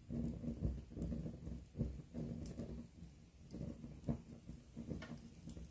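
Wood campfire burning at close range: an uneven low rumble of flames, with a sharp crackle or pop about every second.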